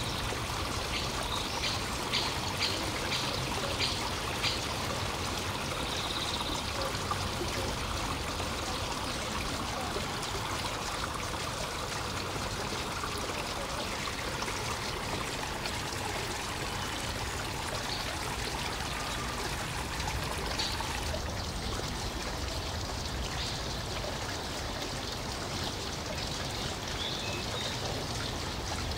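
Steady rushing noise like running water, with a few short clicks in the first few seconds; the hiss thins a little about three quarters of the way through.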